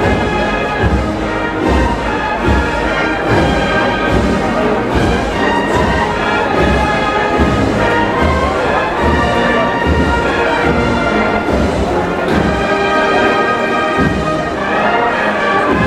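Procession band playing a slow march: brass instruments holding sustained chords over a steady, regularly repeating drum beat.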